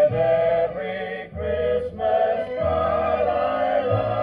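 A 1960s HMV record player playing a 45 rpm vinyl record: several voices singing together over a low bass line.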